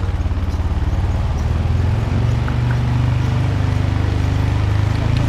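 ATV engine running steadily while it tows a roping-dummy sled, its note stepping up about two seconds in.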